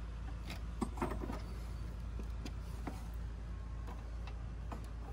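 Faint clicks and rustles of hands handling hoses and wiring on an engine that is not running, a small cluster of them about a second in, over a steady low hum.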